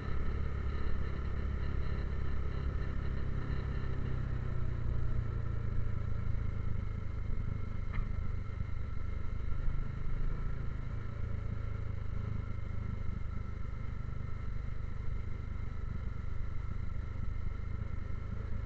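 Motorcycle engine running steadily while riding, with a brief click about eight seconds in.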